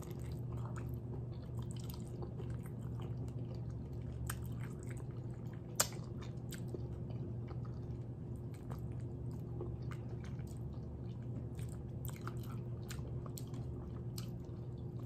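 A person chewing and sucking on adobong chicken feet held in the fingers, close to the microphone: many small wet clicks and smacks, with one sharper click about six seconds in, over a steady low hum.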